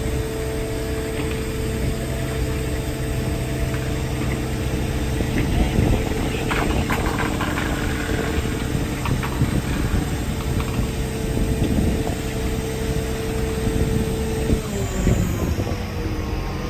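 Diesel power pack of a self-propelled heavy-haul trailer running steadily as the trailer creeps forward, with a few knocks about six seconds in; near the end its steady whine drops in pitch as the engine slows.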